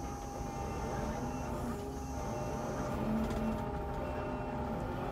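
Kubota skid steer's diesel engine running steadily under load, with the whine of its hydraulics.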